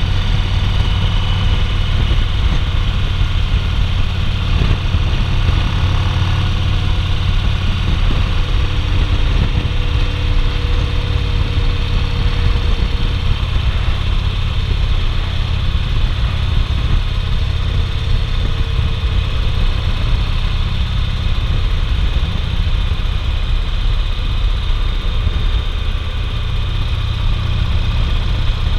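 2008 Yamaha Roadliner (XV1900) air-cooled V-twin running steadily at highway cruising speed, with a steady rush of wind and road noise over it.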